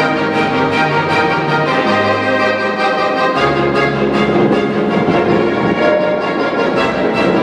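Live music from a string orchestra with accordion: violins, cello and double bass playing alongside the accordion and a keyboard. The notes grow quicker and busier about five seconds in.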